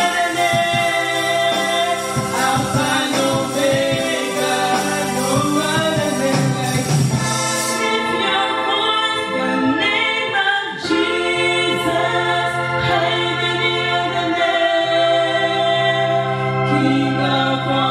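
A woman singing a gospel worship song into a microphone, accompanied by held chords on an electronic keyboard.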